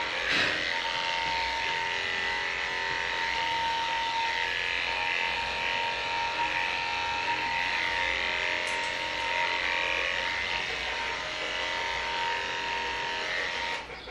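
Cordless electric dog clippers running with a steady buzz while clipping a dog's coat; the sound cuts off just before the end.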